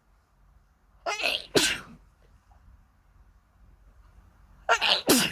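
A person sneezing twice, about a second in and again near the end. Each sneeze is a voiced 'ah' intake followed at once by the sharp sneeze. They are allergy sneezes, with the nose irritated and sore.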